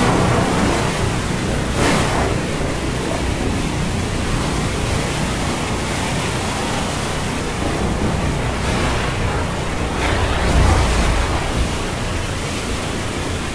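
Steady rushing noise of a storm at sea, swelling now and then, with a low rumble rising about ten seconds in.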